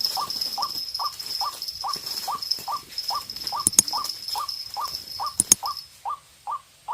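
White-breasted waterhen calling: an even run of short repeated notes, about two and a half a second. A steady high whine sits behind the calls and stops near the end, and two sharp clicks fall about halfway through.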